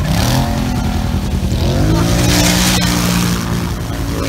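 ATV engine revving hard, its pitch climbing about two seconds in and holding high before dropping back, with a hiss of water spray as the quad ploughs through shallow river water.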